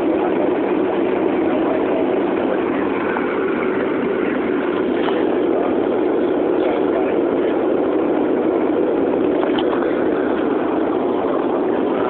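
Steady drone of a passenger plane in flight, heard inside the cabin: engine and airflow noise, unbroken and even.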